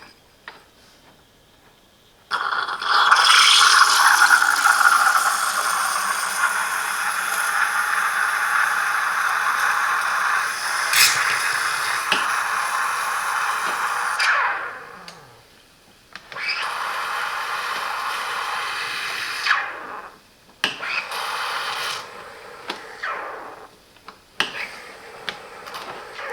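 Steam wand of a Silvercrest SEM 1100 E1 espresso machine hissing as it steams and froths milk. One long steady hiss starts about two seconds in and fades out after about twelve seconds, then shorter runs of hiss follow with pauses between them.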